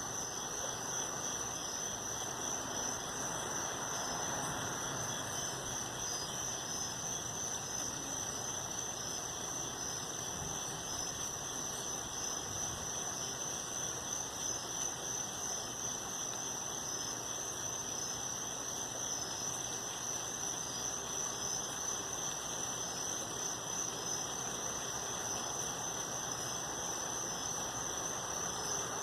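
A steady chorus of night insects chirping in a continuous high pulsing trill over a low even hiss; no thunderclap is heard.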